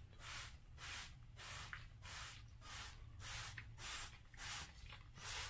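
Trigger spray bottle squirting an alcohol-and-water mix in quick repeated pumps, about two short hissing sprays a second, soaking loose scenery material.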